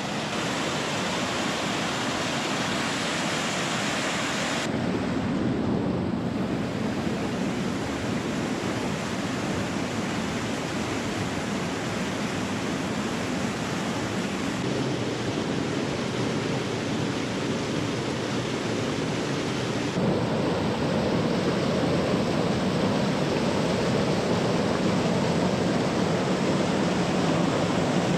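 Mountain creek rushing over rocks: a steady, even rush of water. The sound changes abruptly twice, about five seconds in and about twenty seconds in, and is a little louder after the second change.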